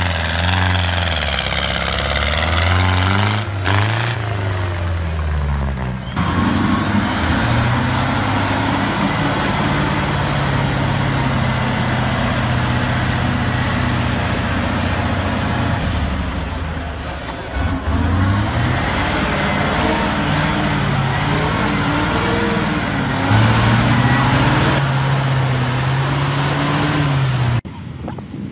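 Military truck engines working hard off-road, in a run of separate clips. The engine note rises and falls as it revs in the first few seconds, then holds steadier, and the sound changes suddenly a few times where one clip gives way to the next.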